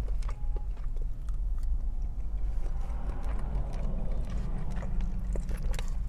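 Close-up chewing with wet mouth clicks, and a plastic fork picking at food in a foam takeout container, over a steady low rumble.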